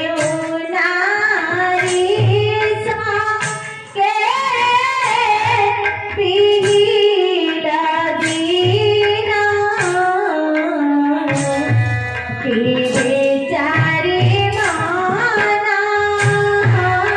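A song: a solo voice sings a winding, ornamented melody over steady hand-drum beats and instrumental accompaniment, with a brief drop in level about four seconds in.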